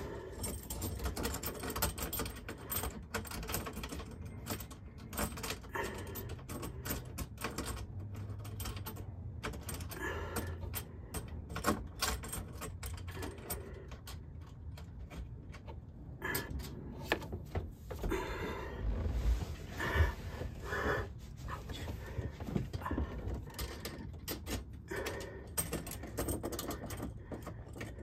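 Scattered small clicks, taps and rattles of hands working a kitchen faucet's supply hoses and mounting hardware up behind a sink, in a cramped cabinet. Denser rustling and a bump come about two-thirds of the way through.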